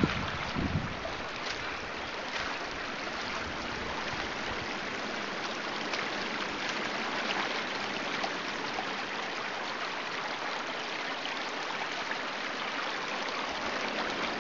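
Shallow woodland stream running steadily over its stony bed, an even rushing of water.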